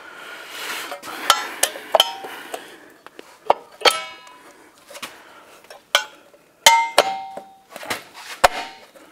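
Metallic clicks and clinks from the steel shoes and springs of a Land Cruiser 60 Series rear drum brake being fitted by hand onto the backing plate. Several strikes ring on briefly as a ping, the longest about seven seconds in.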